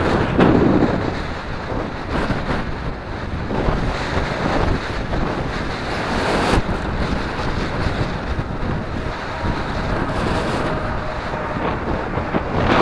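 Wind buffeting the microphone, a steady rushing noise that rises and falls in gusts.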